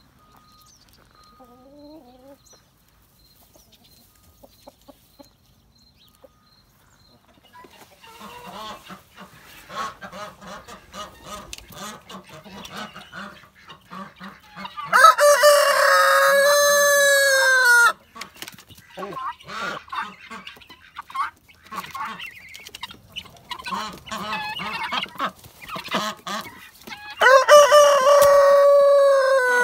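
A flock of chickens clucking and chattering, which starts about a quarter of the way in. A rooster crows twice over it, each crow a long call of about three seconds that drops in pitch at the end, about halfway through and near the end.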